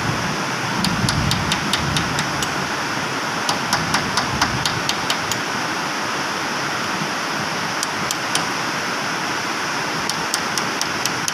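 Metal hand tool clicking and tapping against the hub of a forklift reach truck's load wheel during a wheel change, in several short runs of sharp ticks, over a steady loud background hiss.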